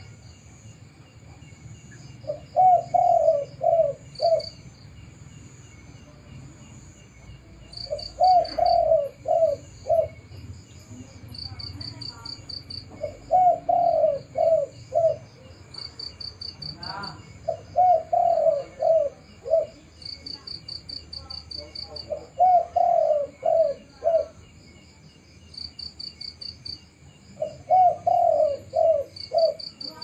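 Spotted dove cooing: six phrases of four or five low coos, about one every five seconds. A high, rapid chirping goes on steadily in the background.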